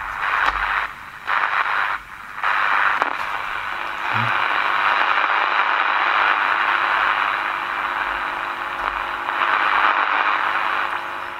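Monatone transistor clock radio on medium wave giving only hiss and static from its speaker, with no station received. The hiss cuts out a few times in the first couple of seconds, then runs steadily.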